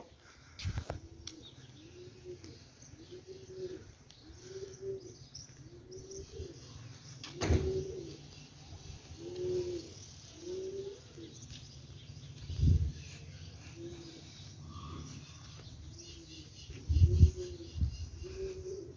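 A dove cooing: a steady series of short, low, arched coos, about one a second. A few dull thumps break in, loudest near the end.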